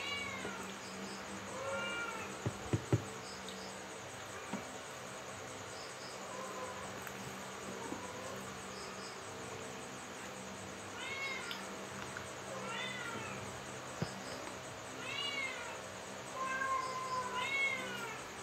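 A house cat meowing over and over in short rising-and-falling calls, several in quick runs, begging for food at the dinner table. A couple of sharp clicks come about three seconds in.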